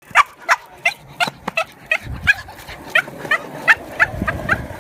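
A small dog yapping over and over, about three sharp barks a second, as it pulls hard on its leash.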